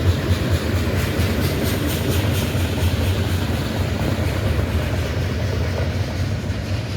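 Train rolling past close by: a steady, loud rumble of wheels on rail with a light rhythmic clacking, and no horn.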